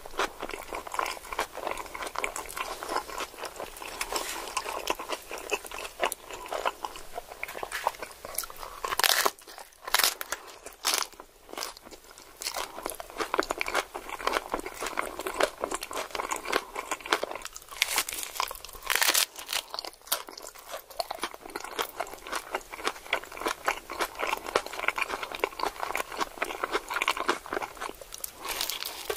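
A person chewing a crunchy taco: a steady crackling crunch, with a few louder bites about nine to eleven seconds in and again around eighteen to nineteen seconds.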